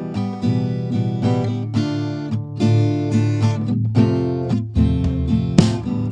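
Background music: strummed acoustic guitar chords over a steady low bass line.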